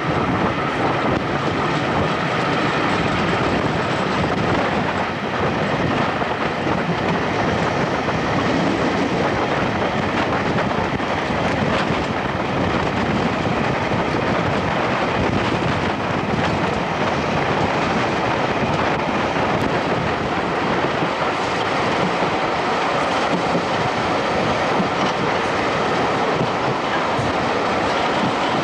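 Electric multiple-unit passenger train running steadily along the line, heard from an open carriage window.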